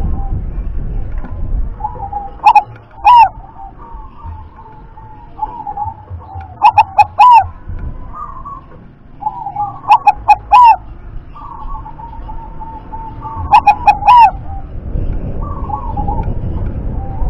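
Caged zebra dove (perkutut) singing its cooing song, four phrases about three and a half seconds apart, each ending in a quick run of short, loud notes, with softer cooing in between.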